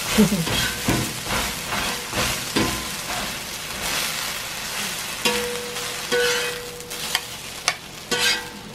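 Metal spatula scraping and knocking on a hot iron griddle as a pancake is cut and pushed onto a plate, over a steady sizzle of frying. The scrapes come as separate short strokes every second or so.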